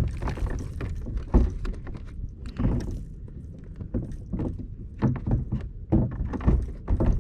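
Irregular thumps and knocks of handling in a fishing boat over a steady low rumble, the sharpest knock about a second and a half in.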